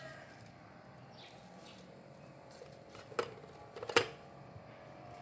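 Two sharp knocks about a second apart near the end, the second louder, as a hand puts dried butterfly pea flowers into the metal strainer of a teapot.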